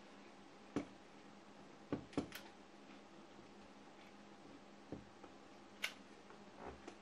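Faint, scattered sharp clicks and knocks, about eight, as a hot glue gun is picked up and worked against the record-player mechanism, over a faint steady low hum.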